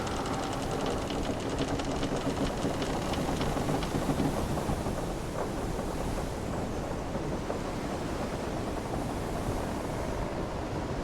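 Wooden sailing ship's timbers creaking over a steady rush of ocean waves and wind, with creaks and fine crackling heard mostly in the first half.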